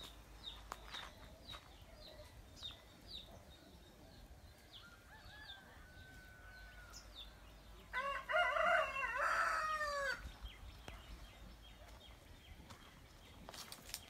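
A rooster crowing once, a pitched call of about two seconds in two parts, the second ending in a falling note. Before it, a small bird gives short high chirps over and over.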